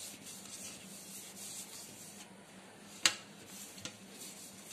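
Hand rubbing ghee over a metal baking tray to grease it: a soft swishing of repeated strokes of skin on metal. One sharp click about three seconds in.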